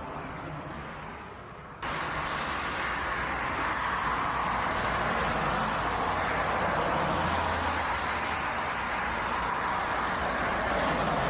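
Jet airliner engine noise on landing approach. A quieter, fading engine whine cuts abruptly about two seconds in to a louder, steady rushing jet noise from a twin-engine wide-body airliner on short final, swelling slightly as it comes closer.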